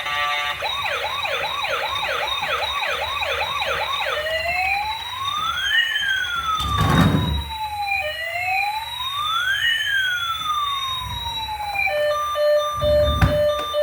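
Electronic emergency-vehicle siren, first in a fast repeating yelp, then changing about four seconds in to a slow rise-and-fall wail. Two low thuds come during it, and near the end it gives way to a steady pulsing beep.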